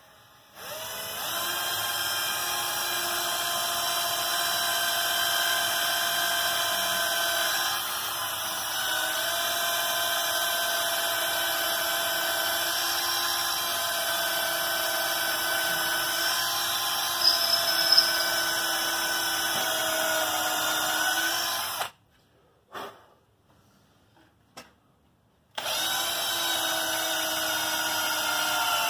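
Cordless drill running a long steady whine as it bores a hole down through a plywood kayak frame into the wooden keel for a dowel, its pitch dipping briefly now and then as the bit bites. Near the end it stops for about three seconds, with two brief spurts, then runs again.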